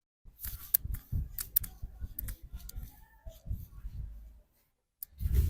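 A barber's hands working on a customer's head and neck in a head massage: irregular sharp clicks and taps over soft thumps and rubbing, trailing off about four and a half seconds in.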